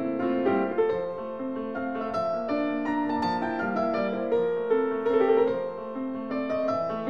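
Background piano music: a melody of single notes and chords played throughout.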